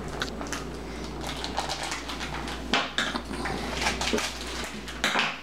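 Plastic wrap crinkling and rustling as a frozen tilapia fillet is unwrapped by hand, with two sharper clicks about three seconds and five seconds in, over a low steady hum.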